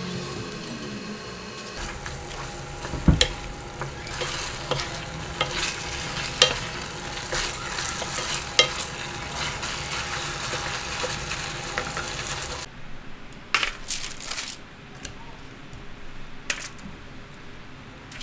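Chicken pieces and garlic butter sauce sizzling in a pan while being stirred with a wooden spatula, which scrapes and knocks against the pan now and then. About two-thirds of the way through the sizzle stops abruptly, leaving a few light clicks.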